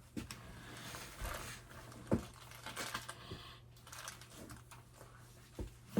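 Irregular light clicks and small knocks of hand tools and metal and plastic parts being handled while taking apart a garage door opener, with a louder knock about two seconds in and another near the end.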